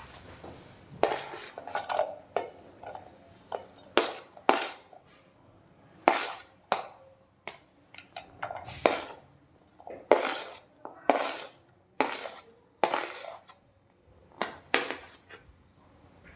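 Cutlery clinking and scraping against dishes while food is prepared, about a dozen sharp strokes at roughly one a second.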